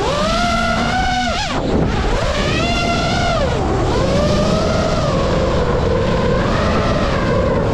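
FPV quadcopter's brushless motors and propellers whining, heard from the onboard camera. The pitch swoops down and back up twice with the throttle in the first few seconds, then holds steadier with small wobbles.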